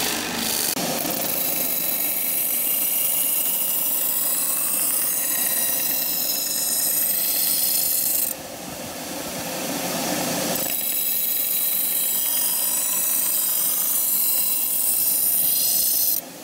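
Steel knife blade ground on a running belt grinder: a steady abrasive rasping hiss as the edge is pressed to the belt, throwing sparks. The tone changes about a second in and again around eight seconds in, dipping briefly before it steadies.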